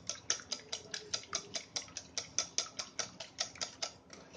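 Wire whisk beating eggs in a bowl: the whisk clicks against the bowl in a steady rhythm of about five strokes a second as the eggs are beaten fluffy.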